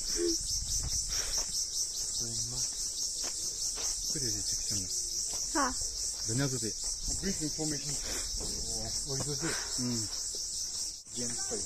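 Insects trilling in a steady high-pitched chorus with a rapid, even pulse. Voices talk faintly underneath.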